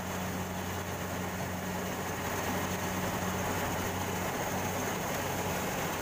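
Rice combine harvester running while it cuts standing rice: a steady, low engine hum under the even noise of the header and threshing machinery.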